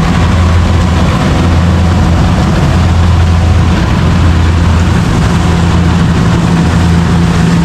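An engine running steadily with a constant low hum and no change in speed.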